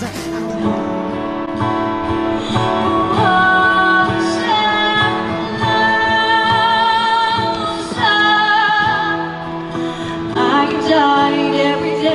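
Live pop music: a woman singing long held notes with a slight waver in pitch, over instrumental accompaniment that includes guitar, fading out at the end.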